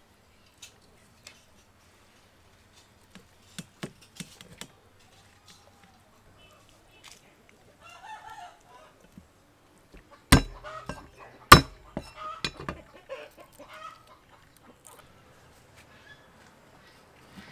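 Live chickens clucking, with a rooster crowing, in the background. Light clicks about four seconds in and two sharp loud knocks a little over a second apart past the middle, from handling metal kitchenware.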